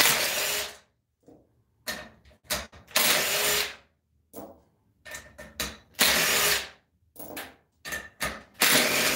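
Cordless impact driver backing out the socket-head (Allen) bolts from a bolt-together torque converter's cover, in four short runs of under a second each. Light clicks and knocks between the runs as the loosened bolts are handled and set down.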